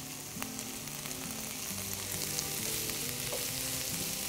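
Thinly sliced onions sizzling in oil in a frying pan, starting to caramelize with brown sugar just added. The sizzle grows louder about halfway through.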